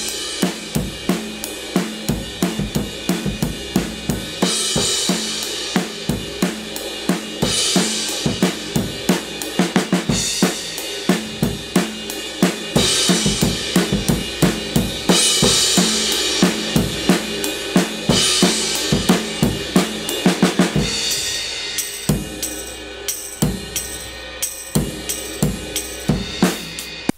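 A drum pattern of kick, snare, hi-hats and cymbals playing in a steady groove, run through the FirePresser compressor and Kazrog True Iron saturation plugins while their settings are tweaked. It cuts off right at the end.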